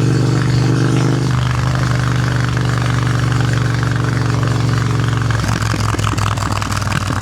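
Triumph Thruxton RS 1200 parallel-twin with a Hitchcox custom exhaust running at a steady engine speed; over the last couple of seconds the exhaust note breaks into an uneven, pulsing burble.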